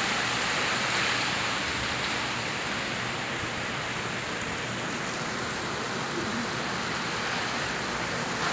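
Heavy rain pouring down in a rainstorm: a steady, even hiss of rainfall.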